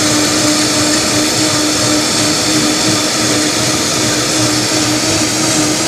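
Countertop blender running steadily at full speed, blending chopped bok choy and apple with orange juice into a whole-fruit-and-vegetable juice: a loud even whirr over a steady motor hum.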